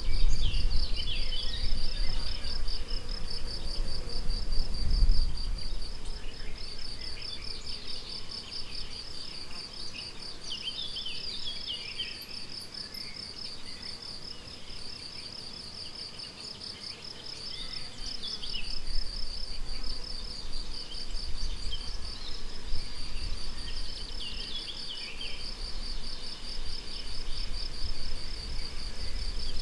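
Crickets chirping in a steady stream of rapid, even pulses, pausing briefly a few times, while songbirds call faintly in a spring meadow. A low rumble rises and falls underneath.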